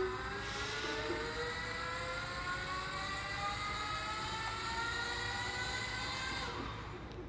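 Brushless electric drive motor of a remote-control wheeled chassis whining as it runs, rising steadily in pitch as it speeds up, then stopping about six and a half seconds in.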